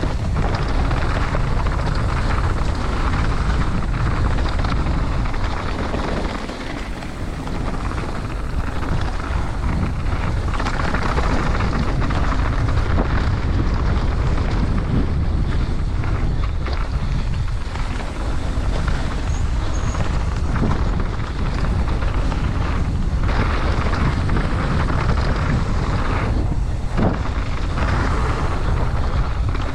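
Mountain bike descending a dirt bike-park trail at speed: steady wind rush on the microphone mixed with the rumble of tyres on dirt, and a few sharp knocks from the bike over bumps near the end.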